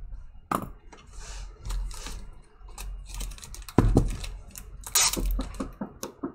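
Trading-card packs and their plastic wrapping handled on a table, crinkling and clicking, broken by a few sharp knocks from someone knocking on the wall, the loudest about four seconds in.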